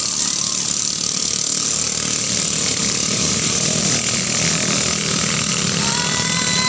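Ketinting longtail boat engines, small 6.5 hp motors, running flat out in a race, making a continuous rough buzz.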